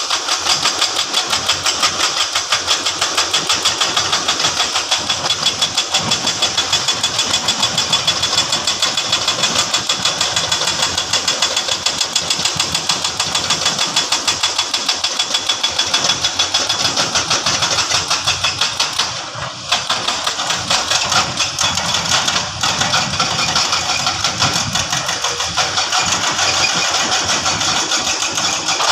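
Diesel engine of heavy construction machinery running steadily with a fast, even pulsing beat, dipping briefly about two-thirds of the way through.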